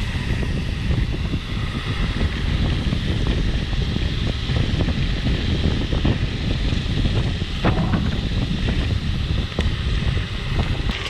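Mountain bike rolling over gravel: tyres crunching and the frame rattling over the rough surface, with steady wind rush on the microphone. A sharper clack about two-thirds of the way through.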